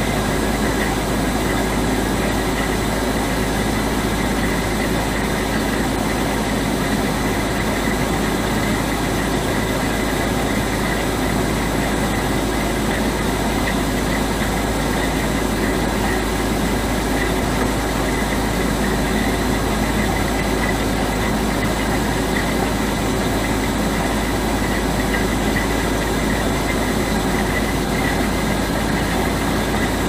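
HVAC unit humming: a deep steady drone under an even rushing noise, with faint high whining tones on top.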